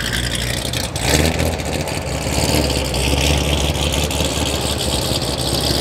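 A heavily built C7 Corvette's V8, rated at about 1,000 horsepower, running steadily at low revs as the car pulls away slowly. There is a short sharp crack about a second in.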